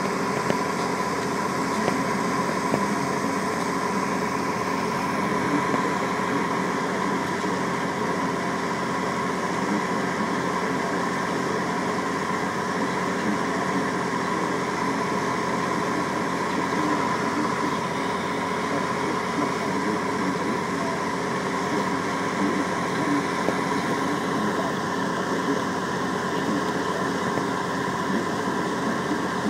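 John Deere 6900 tractor's six-cylinder diesel engine running steadily under load, pulling a mounted plough through the soil.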